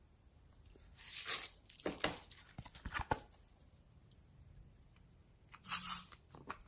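Slime being stretched and squeezed by hand, in a few short, sticky noisy bursts: one about a second in, two more around two and three seconds, and another near the end.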